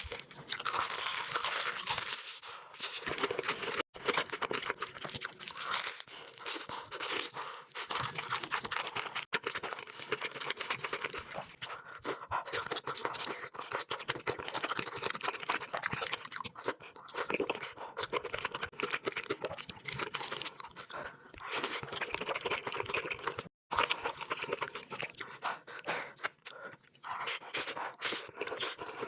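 Close-up chewing and crunching of crisp food, a steady crackle of many small crunches throughout.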